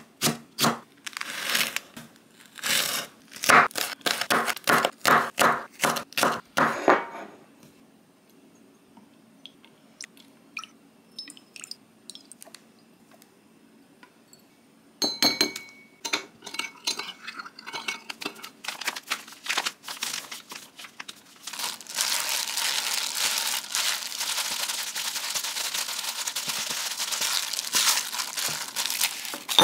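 Kitchen cooking sounds: a run of quick, regular knocks for the first several seconds, a quiet gap, then scattered clinks and taps of dishes and utensils. A steady hiss fills the last several seconds.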